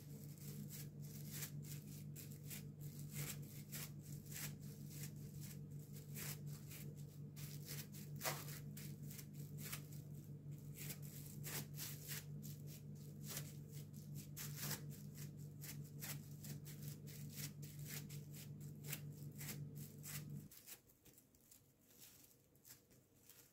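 Hands pressing minced lamb into a bowl lined with plastic cling film: frequent small crackles of the film and soft handling of the meat. A steady low hum underneath stops about twenty seconds in.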